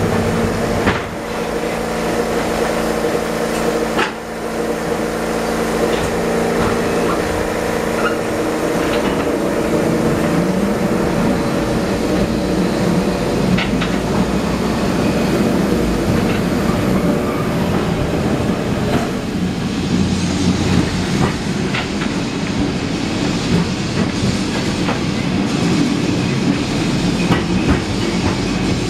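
Vintage electric tram (a Lisbon route 28 Remodelado car) running along its street rails, heard from on board: a continuous rumble and rattle of the car and wheels. A steady motor hum fades away about ten seconds in, and there are scattered sharp clicks and knocks from the wheels and track.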